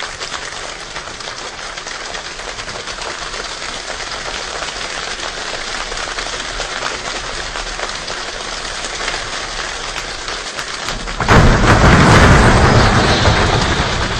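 A group of people imitating rain with their hands: a steady patter of many hands that builds slowly, then about eleven seconds in suddenly becomes much louder and heavier, like a downpour.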